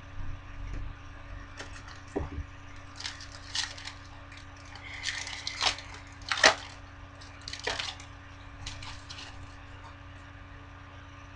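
The foil wrapper of a Bowman Chrome baseball card pack being torn open and crinkled by hand, in a run of short crackles and rustles that is loudest a little past the middle.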